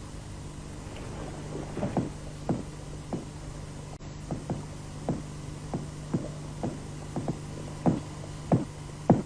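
A series of short knocks at an irregular, unhurried pace, getting louder toward the end, over a steady low hum.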